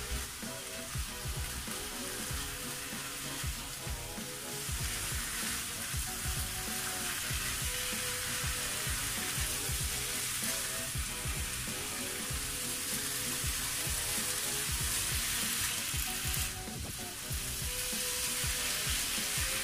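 Diced chicken breast with vegetables sizzling in a frying pan while being stirred and turned with a silicone spatula, the spatula knocking and scraping against the pan.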